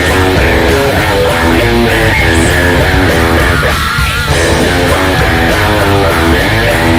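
Squier Classic Vibe Telecaster electric guitar playing a rapid, rhythmic rock chord riff over a heavy bass line, with a brief break in the chords about halfway through.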